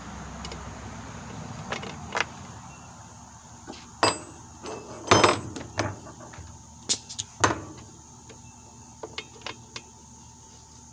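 Handling clatter on a two-stroke leaf blower's engine: sharp clicks and knocks of hands and tools, with a cluster of louder knocks in the middle and a few light ticks near the end, as the blower is readied for a compression test.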